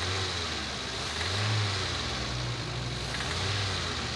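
Toyota Avanza/Daihatsu Xenia four-cylinder engine running with ignition coil number 4 unplugged, so that cylinder is not firing, as a check on each cylinder's ignition. The engine note swells slightly twice.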